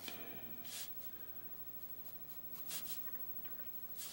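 Pencil scratching on drawing paper in several short shading strokes.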